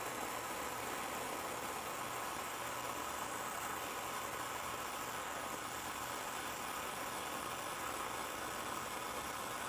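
Oxyacetylene torch flame hissing steadily while it heats a steel flat spring for bending.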